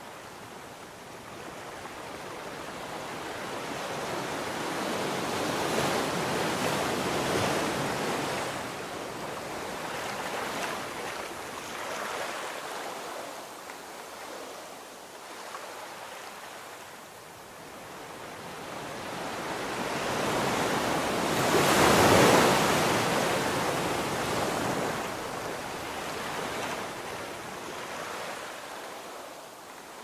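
Ocean surf breaking and washing up a sandy beach. The sound swells and ebbs with the waves, the loudest wave about two-thirds of the way through.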